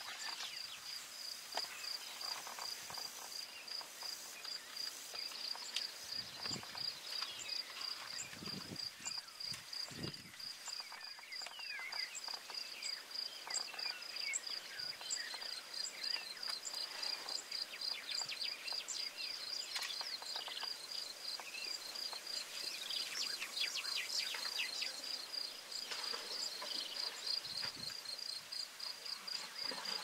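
An insect chirping continuously in a fast, even, high-pitched pulse, like a cricket, with scattered bird calls behind it.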